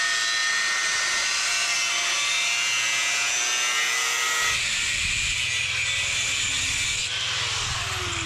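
Angle grinder with a thin cut-off disc cutting through a steel hand-saw blade: a dense, high-pitched grinding hiss. About four and a half seconds in, the cutting sound thins and a lower hum comes in, and near the end the whine falls steadily in pitch as the grinder spins down.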